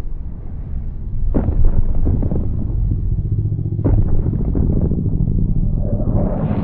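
Custom giant-monster sound effect: a deep, continuous rumble broken by two heavy impacts about two and a half seconds apart, with a harsher, brighter rumble swelling up near the end.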